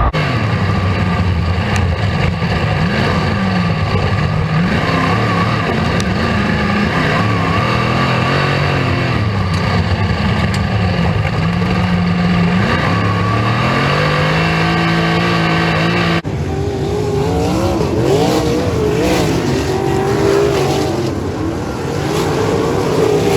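Racesaver sprint car's 305 V8 engine at racing speed on a dirt oval, its revs rising and falling as the throttle comes off and back on through the turns. The sound changes abruptly about two-thirds of the way through, the engine pitch then sitting higher and wavering.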